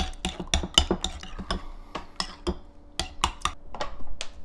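Metal spoon beating raw eggs in a ceramic bowl: quick clinks of the spoon against the bowl, about five a second, thinning to scattered clicks and knocks in the second half.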